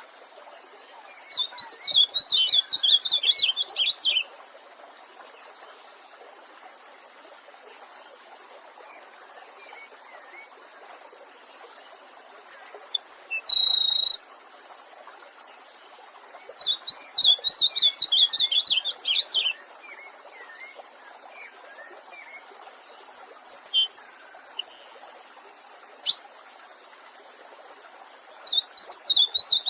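Wild songbirds singing: a fast, warbling song phrase of about three seconds comes three times, with shorter separate calls in between, over a steady hiss from a stream.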